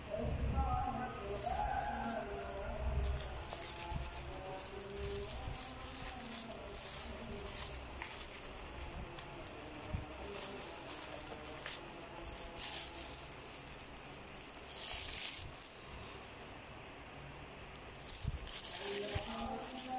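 Clear plastic wrapping crinkling and rustling as it is handled, in irregular bursts with a few louder flares past the middle.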